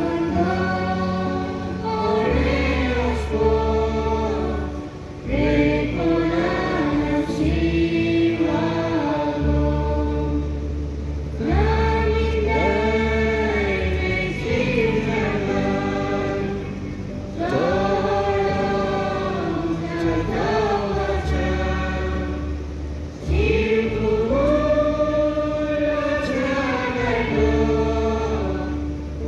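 Choir singing a hymn in long sustained phrases of about five to six seconds each, over a steady low accompaniment.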